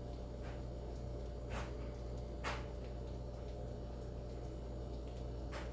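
Steady low hum of room tone with a few faint, short clicks: one about a second and a half in, one about two and a half seconds in, and one near the end.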